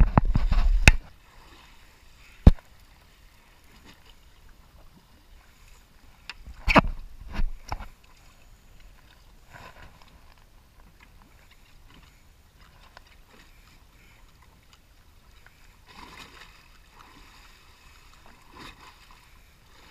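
Faint, steady water lapping around a drifting boat. Loud knocks and rumbles come in the first second and again around seven seconds in, with a single sharp click about two and a half seconds in.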